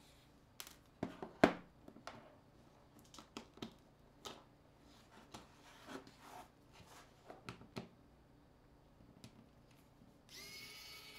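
Scattered small clicks and taps of a precision screwdriver and small metal and plastic smartphone parts on a tabletop as the phone is taken apart. The sharpest tap comes about a second and a half in, and background music comes back near the end.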